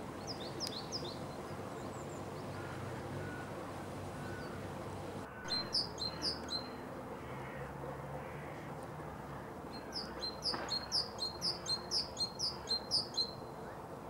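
Male great tit singing its repeated two-note phrase: a short run of about five notes some five seconds in, then a longer run of about a dozen evenly spaced notes near the end.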